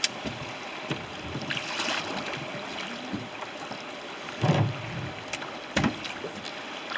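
River water rushing steadily around a fishing boat, with a few knocks against the boat, the loudest about four and a half seconds in and just before six seconds.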